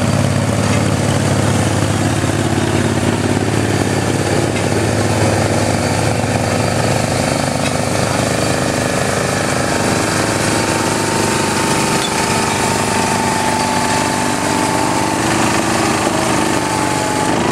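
Small garden tractor engines running hard under load while pulling a weight sled in a garden tractor pull. The engine note is rough and rhythmic, and a higher whine joins it after about ten seconds.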